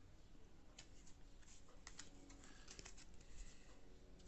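Near silence, broken by a few faint, light clicks of baseball trading cards being handled and flipped through.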